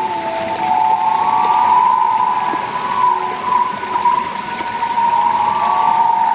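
Night-time chorus of several animals calling at once in continuous, slightly wavering tones close together in pitch, over a steady hiss.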